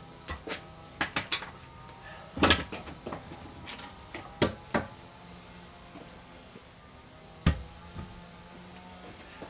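Irregular sharp clicks and clattering knocks of hard objects being handled. The loudest are a cluster about two and a half seconds in and a single heavy knock about seven and a half seconds in, over a faint steady hum.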